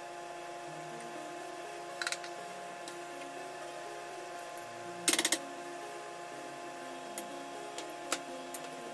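Metal kitchen tongs clicking and clattering against a plastic bento box and a frying pan while scooping stir-fried pork and cabbage: a couple of light clicks near two seconds, the loudest short clatter a little after five seconds, and a few lighter taps near the end.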